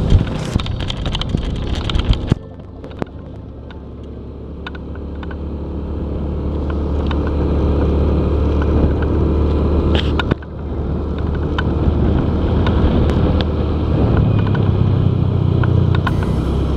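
Motorcycle engine running while riding along a road. The sound drops sharply about two seconds in, then grows steadily louder over the next several seconds.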